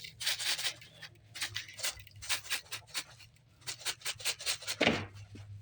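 Dried rosemary leaves rustling and crackling as they are crumbled and added by hand, a run of quick, dry, irregular strokes with a stronger one near the end.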